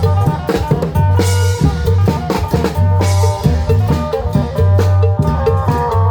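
Isan applied klong yao band playing live: long drums and drum kit beat out a steady rhythm over a held bass line and a melodic line.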